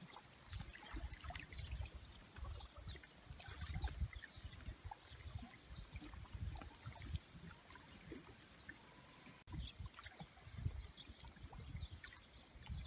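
Small waves lapping and splashing faintly against a stony shore, a scatter of little clicks and splashes over a low, uneven rumble.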